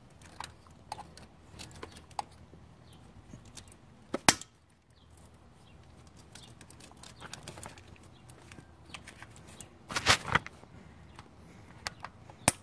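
Hard plastic of an old coolant temperature sensor being snapped off by hand: scattered small clicks and creaks, a single sharp crack about four seconds in, and a few more cracks around ten seconds.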